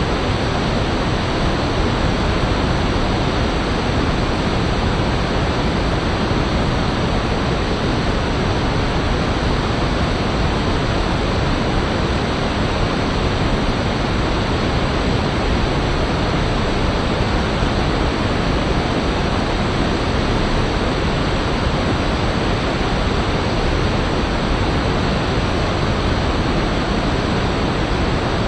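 A fast-flowing river rushing over rocks: a loud, steady, even rush of water that does not change.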